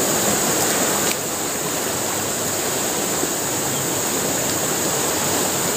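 Swift river water rushing steadily over a shallow riffle.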